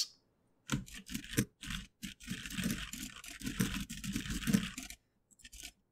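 Computer keyboard typing in quick, irregular runs of key clicks, stopping about five seconds in, with a couple of faint clicks near the end.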